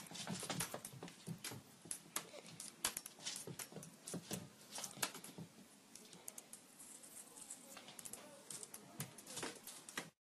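Rapid, irregular scratching and tapping from a small cat scrambling and clawing at play on carpet, breaking off suddenly near the end.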